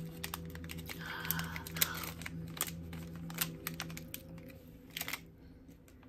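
Quick small clicks and light crinkling of plastic packaging and small trinkets being handled, over soft, sustained spa music from a smart speaker. The handling dies down after about five seconds.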